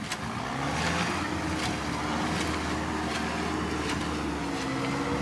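Daihatsu 4x4 pickup's engine running under throttle at steady revs, pitch rising a little about a second in, as it strains to pull the truck out of thick clay, with a few light knocks.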